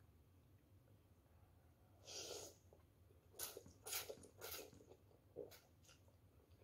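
A person slurping noodles in short sucking bursts: one longer draw about two seconds in, then a run of quick slurps between about three and a half and five and a half seconds. A utensil clinks once against the bowl right at the end.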